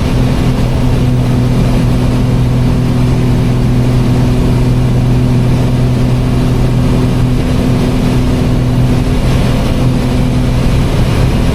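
Steady cabin drone of a light piston aircraft's engine and propeller at cruise power, propellers set to 2500 rpm, an even hum with a constant low pitch.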